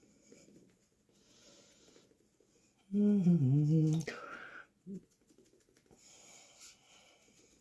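A woman's low hum, about three seconds in, falling in pitch over about a second and trailing into a breathy exhale. Around it, faint soft rubbing as foundation is dabbed onto the face.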